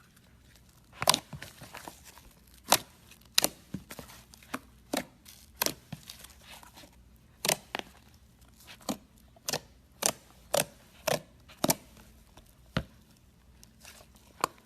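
Slime being played with by hand, giving sharp, irregular pops and clicks, roughly one or two a second.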